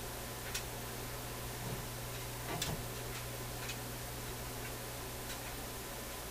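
Multimeter test-probe tips clicking now and then against the pins and solder lugs of a 6V6 output-tube socket, at irregular intervals, the loudest click about two and a half seconds in. Under the clicks runs a steady low mains hum.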